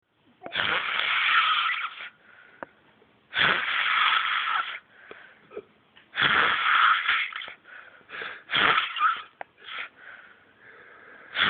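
Snoring: three long, hissy breaths about three seconds apart, then several shorter, quicker ones.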